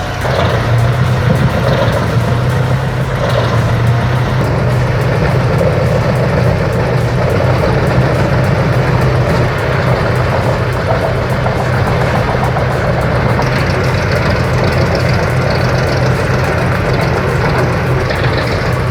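Heavy chipping and shredding machine running steadily, its large engine giving a deep continuous hum under a layer of grinding noise; the noise turns brighter about two-thirds of the way through.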